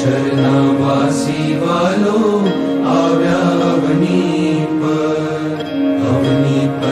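A Swaminarayan devotional kirtan sung in Gujarati: a voice chanting the hymn in long, sliding, held notes over a steady held accompaniment.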